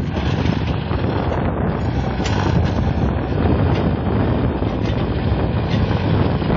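Sonalika mini tractor's diesel engine running steadily under load as it pulls a cultivator through the soil, with wind buffeting the microphone.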